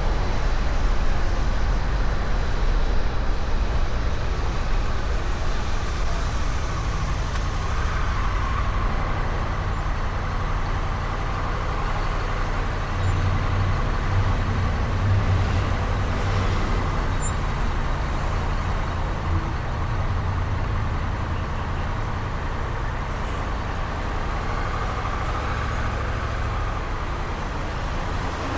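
Honda Rebel 1100 DCT's parallel-twin engine running steadily through the stock exhaust, held at a constant 60 km/h by cruise control, with wind and road noise over it.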